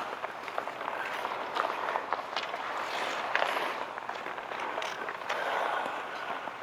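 Outdoor ice hockey play: skate blades scraping and carving the ice in a steady hiss, with frequent sharp clacks of sticks and puck scattered through.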